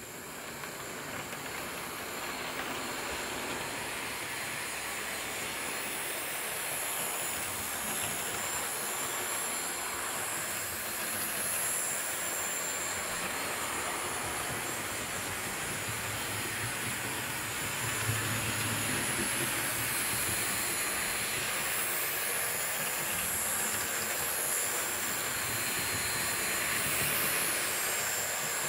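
Hornby OO-scale Flying Scotsman model locomotive running on its track: a steady mechanical rumble with a faint high whine, growing louder over the first few seconds.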